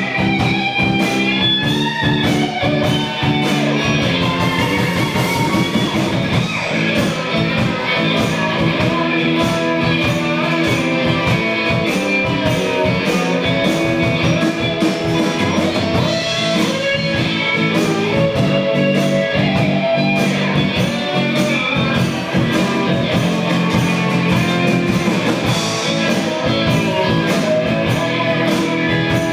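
A live blues-rock band playing: electric guitar over bass guitar and a drum kit, with a steady beat.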